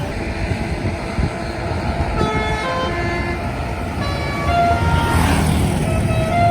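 Bus telolet basuri horn playing a tune of short notes stepping up and down in pitch. It starts about two seconds in, over the rumble of a heavy vehicle engine. The engine and traffic noise swell about five seconds in as the vehicle passes.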